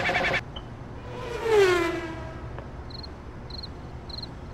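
Music cuts off just after the start. About a second in, a single pitched sound glides steeply downward. Then faint high insect chirps repeat about every half second over a low steady rumble.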